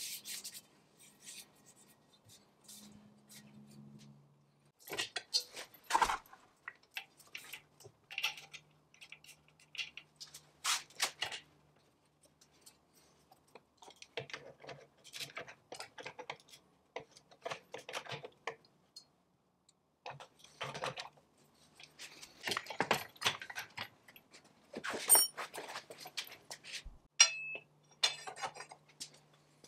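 Metallic clinks, clatters and scrapes of an antique cast-iron treadle lathe's parts and a wrench being handled during reassembly, coming in short bursts with quiet gaps between.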